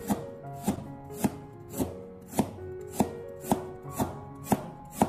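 Chinese cleaver slicing peeled ginger into thin rounds on a wooden cutting board: a steady, even chop of the blade against the board, about ten strokes at just under two a second.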